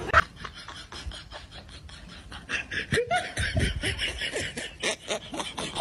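A person laughing in a long run of short, rapid bursts, with a few voiced falling laughs in the middle.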